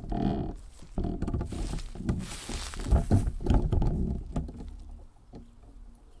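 Footsteps walking over outdoor ground: irregular scuffs and crunches over a low steady rumble on the microphone.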